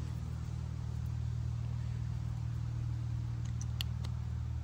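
Steady low mechanical hum from a machine running nearby, with a few faint clicks near the end as plastic wiring connectors are handled.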